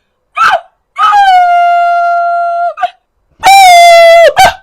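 A dog giving a short yelp, then howling in two long, steady, level-pitched cries that each drop off at the end, with short yelps in between.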